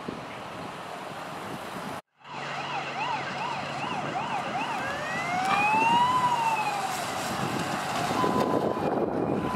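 Fire engine siren: a fast yelp warbling up and down, then one slow wail rising and falling, then a steady high tone near the end, over passing traffic. Before that, wind rumbles on the microphone.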